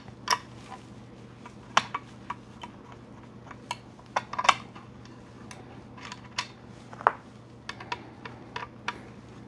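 Irregular light clicks and taps of a small circuit board being handled in its plastic enclosure, about a dozen in all, with the sharpest about two, four and a half and seven seconds in.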